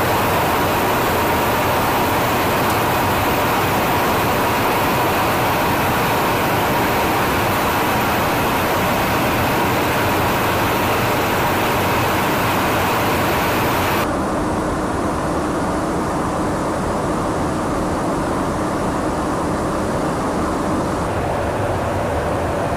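Steady in-flight aircraft noise heard from inside the aircraft: a dense rush of airflow and engine drone with a faint steady whine. About fourteen seconds in it changes abruptly to a duller, lower rush.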